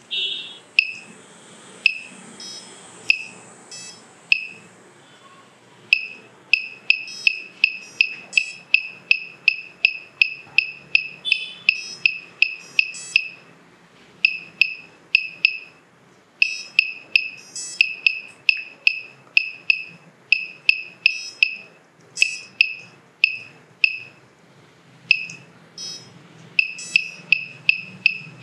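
Piezo buzzer on a KK2.1.5 flight controller beeping once for each press of its menu buttons as PID values are stepped up and down. Short high beeps, mostly in quick runs of about three a second, with a few short pauses.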